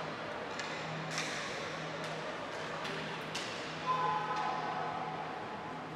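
Ball hockey play: a few sharp clacks of sticks and the ball, the loudest about four seconds in, followed by a short shout. A steady low hum runs underneath.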